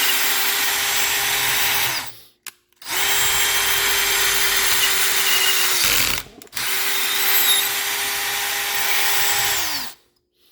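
Power drill driving a 2-1/2 in. star-drive deck screw into wood in three long runs, each a steady motor whine that winds down in pitch as the trigger is released. The screw is being pushed hard to test whether its star head will strip out.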